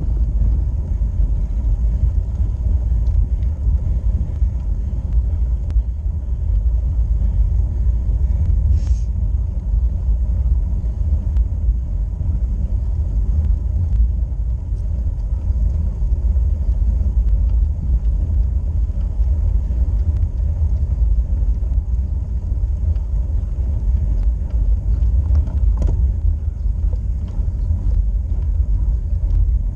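Steady low rumble of road vibration and wind on a handlebar-mounted action camera as a road bike climbs slowly on tarmac, with a couple of faint ticks.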